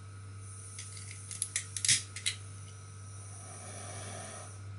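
BST-100 pen-type butane soldering iron being lit: a quick run of sharp igniter clicks, then a soft hiss as the gas catches and burns with a small blue flame.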